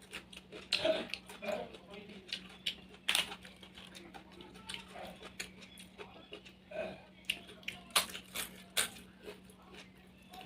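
Close-miked eating sounds: wet chewing and lip smacks with scattered sharp clicks, the loudest around three seconds in and a cluster near eight to nine seconds. A faint steady hum runs underneath.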